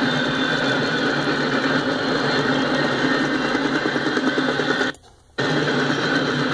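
Double-stack intermodal well cars rolling past: a steady rolling noise of steel wheels on rail. The sound cuts out for about half a second around five seconds in, then resumes.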